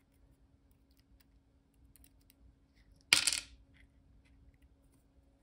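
Faint light ticks of a steel pick working in the core of a disassembled Solex R40 disc detainer lock, with one sharp metallic clink and a brief ring about three seconds in.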